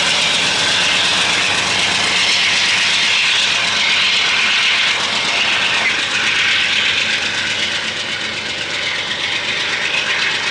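Maintenance-of-way train rolling past on the rails: a loud, steady wheel-on-rail noise that eases off a little near the end.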